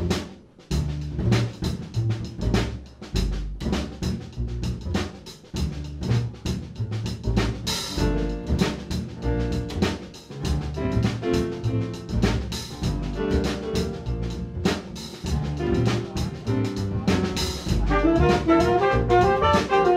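Small jazz combo playing live: upright bass walking under a steady drum-kit beat, with piano. Trumpet and tenor saxophone come in with the melody near the end.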